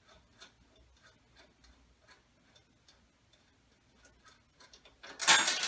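Hand ratchet clicking in slow, short strokes as a 1/2 inch lock nut on the shock's air fitting is loosened, about two clicks a second. Near the end comes a loud, noisy burst lasting about a second.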